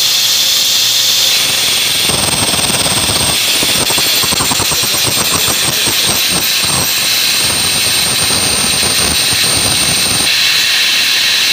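Steel flywheel with a ring gear spun up on an automatic balancing machine so the imbalance can be measured. A high whine comes in about a second and a half in, and a rough whirring from the spinning wheel runs from about two seconds until it stops near the end. A steady hiss of factory air runs underneath.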